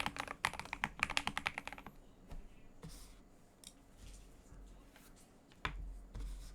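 Fast typing on a brass-plate Keydous NJ80 mechanical keyboard with lubed Gateron Yellow Pro linear switches, foam-dampened and tape-modded, in a quick run of keystrokes that stops about two seconds in. A few scattered single key presses follow, and a louder dull knock comes near the end.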